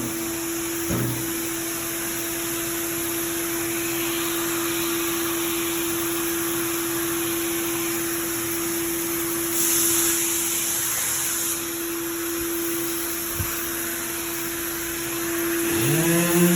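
Dual-action orbital sander with its dust-extraction vacuum running steadily, a constant whine over a hiss of sanding on primer. Near the end a second motor spins up with a rising whine.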